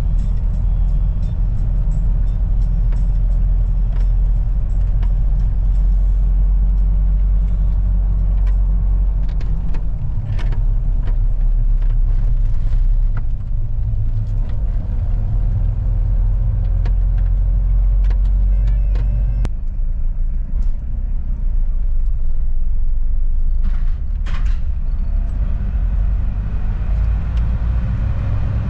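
Mitsubishi Pajero on the move: a steady low rumble of engine and road noise, with a few light knocks.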